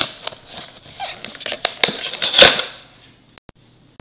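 Cardboard trading-card blaster box being opened by hand: a run of small clicks and crackles as the glued lid flap is worked loose, then a short, louder tearing sound about two and a half seconds in as the flap comes free.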